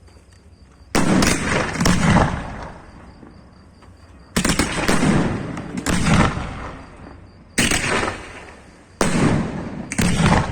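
Firework shells bursting overhead in quick clusters of two or three bangs, a new cluster about every three seconds, four in all. Each bang is sudden and then rumbles and echoes away.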